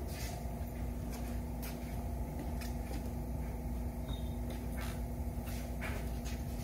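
Steady low hum of a workshop with a constant mid-low tone, and a few faint scattered clicks and knocks as an air-ride bag is handled under a car on a lift.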